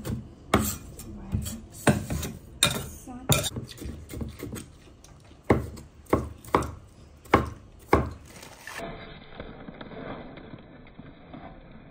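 Cleaver chopping chillies and cucumber on a wooden cutting board: a string of sharp, uneven knocks that stops about three-quarters of the way through, leaving only a faint background.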